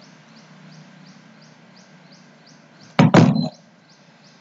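A loud knock about three seconds in: a few quick strikes within half a second. Under it, a low steady hum and a faint, even ticking about four times a second.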